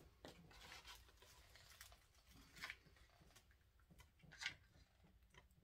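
Near silence with a few faint, short rustles, the clearest about two and a half and four and a half seconds in: hands pressing a craft foam piece against a grapevine wreath form.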